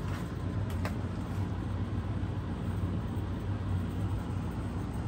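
Attic fan running as a wall exhaust fan: a steady low hum from its motor with an even rush of air.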